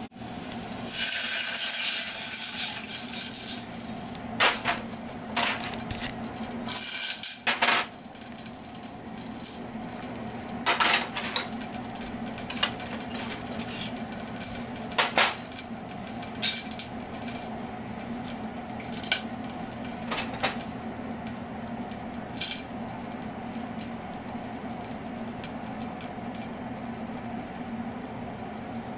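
Small dishes and a spatula clinking and scraping against a stainless steel pot as sauce ingredients are tipped in, with a few seconds of sizzling near the start as liquid hits the hot oil. A steady low hum runs underneath.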